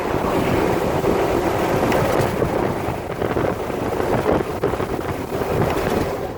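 Jeep Wrangler JK being driven, with steady drivetrain and road noise and irregular low knocks. The owner hears this knock in first to third gear or at low speed and suspects the transmission case or the differentials.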